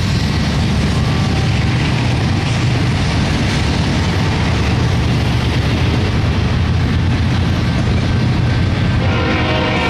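BNSF double-stack intermodal train rolling past, a steady loud rumble of well cars and wheels on the rails. A horn-like tone joins near the end.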